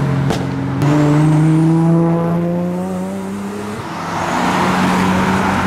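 Modified car's engine pulling hard, its note climbing steadily for about three seconds and then easing off, followed by a broad rushing noise as the car goes past. A single sharp crack just before the engine note rises.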